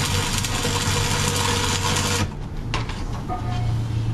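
Electric arc welding: the arc crackles and hisses over a steady low machine hum, then cuts off a little past halfway, leaving only the hum.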